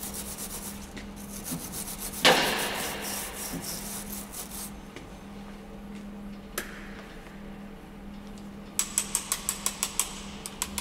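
MIG welder crackling and hissing on rusty steel sheet. It sputters a little because some rust is still left in the metal. The crackle is loudest from about two seconds in and stops a little before halfway; later there is a single click, and near the end a quick run of about eight sharp ticks, over a steady low hum.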